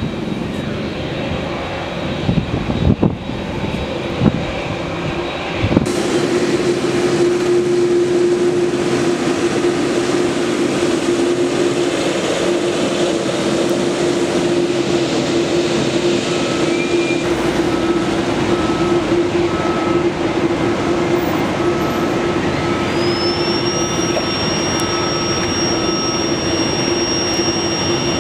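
Jet noise with a few low thumps for the first few seconds, then a Boeing 787-8 taxiing with its turbofan engines at low thrust: a steady engine hum, joined near the end by a high whine that rises and then holds as the aircraft turns toward the microphone.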